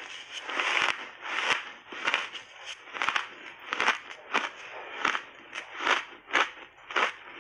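Close-miked chewing of hard, crunchy frozen ice chunks coated in matcha and milk powder, giving a steady run of sharp crunches about two a second.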